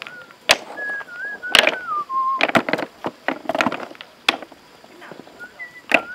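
River stones clacking against each other as they are set by hand into a stone edging: several sharp knocks, about one a second, the last one near the end. A whistled tune wavers over the first half and comes back near the end.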